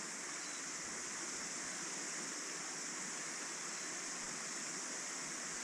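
Steady rush of a small stream's flowing water: an even hiss with no breaks or separate sounds.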